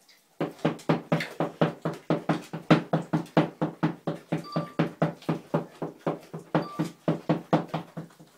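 A dog licking and mouthing a whole raw chicken: a rapid, even run of licks at about four a second, starting about half a second in.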